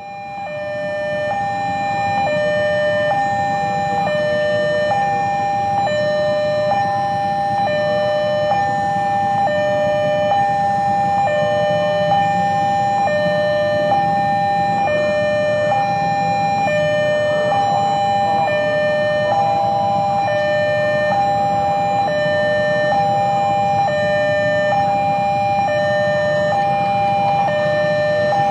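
Railway level crossing warning alarm sounding: an electronic two-tone signal alternating steadily between a higher and a lower tone, about one pair a second, signalling an approaching train. A low rumble of traffic runs underneath.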